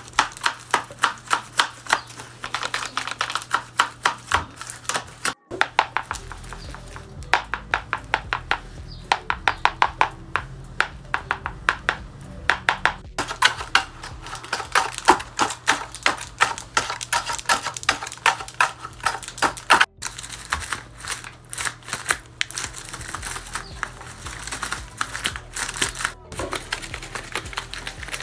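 Handmade paper dragon puppets snapping their jaws open and shut: rapid runs of dry paper clicks, several a second, in a few long runs broken by short gaps.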